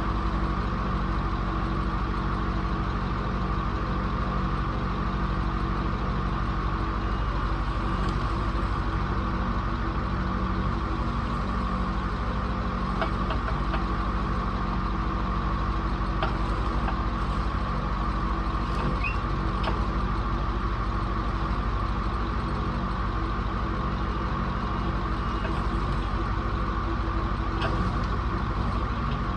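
A vehicle engine running steadily at a constant speed, with a few faint clicks in the middle.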